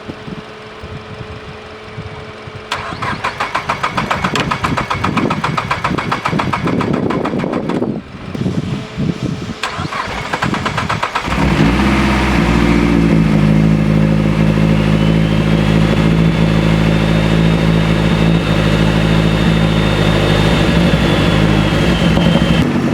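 Mazdaspeed 3's 2.3-litre turbocharged four-cylinder cranking on the starter for several seconds, pausing briefly about eight seconds in, then cranking again until it catches about eleven seconds in and settles into a steady fast idle with a thin high whine over it. This is the first successful start after the fuel rail and fuel pressure sensor were replaced to cure a P0193 fuel rail pressure sensor fault.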